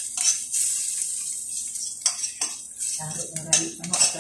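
A metal spoon stirring and scraping food in a stainless steel pan on the stove, with several sharp clinks against the pan over a steady sizzle of frying.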